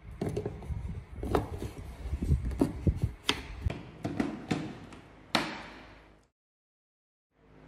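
Plastic clicks and knocks as a blender's small grinding cup is screwed onto its blade unit and seated on the motor base, with one sharper clack about five seconds in.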